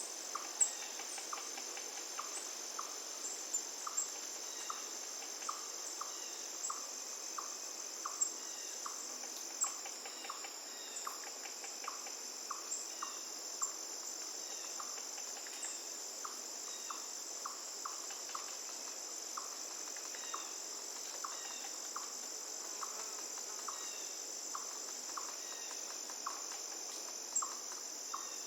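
A steady high insect trill, like crickets, with short chirps repeating at a steady pace and a few sharper ticks, over a faint rush of river water.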